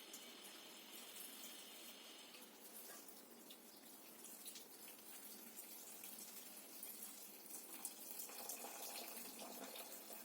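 Faint water running and splashing as dried tiny shrimp (sukat) are rinsed clean by hand, with small scattered splashes and clinks.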